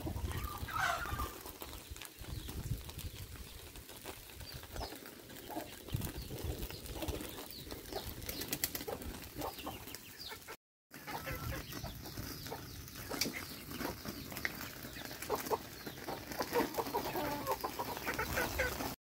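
Domestic chickens clucking, with scattered short clicks. There is a brief dropout about two-thirds of the way in.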